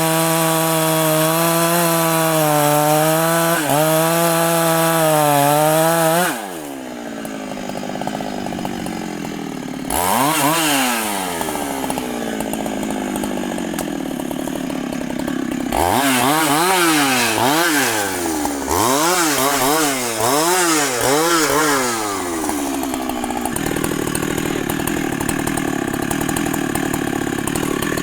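Large Husqvarna two-stroke chainsaw running at full throttle for about six seconds, then dropping back. Near the middle it is revved in a series of quick up-and-down blips, then settles to a lower, steadier running speed.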